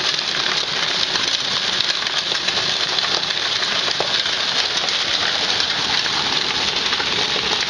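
Homemade ball mill running: as the drum turns on its rollers, the heavy shot puts and glass marbles inside tumble over each other in a steady, dense clatter, grinding charcoal.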